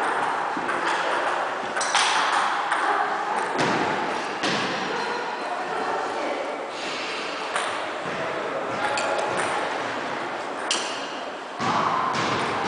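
Arms and hands striking and slapping against each other and against jacket sleeves in a fast partner blocking drill: a quick, irregular run of short slaps and thuds.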